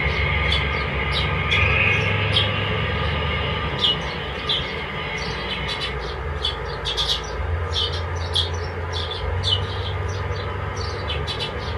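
N-gauge model freight train running along the layout track: a steady low hum with short, uneven high ticks over it, two or three a second.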